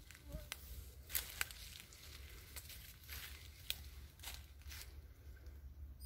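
Faint scattered crackles and rustles, like dry leaves or handling noise, over a steady low rumble. Two sharper clicks come about a second and a half in.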